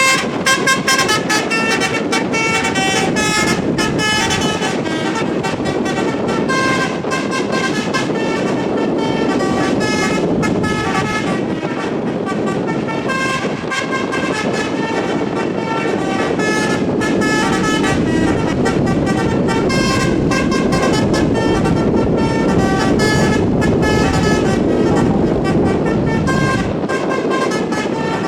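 Bus 'telolet basuri' multi-trumpet air horn playing a continuous melody of short notes that change pitch in quick succession, over the running of the bus engine and road traffic.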